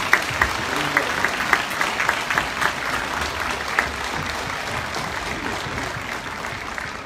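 Audience applauding: a dense patter of many hands with some sharper, closer claps. It dies away near the end.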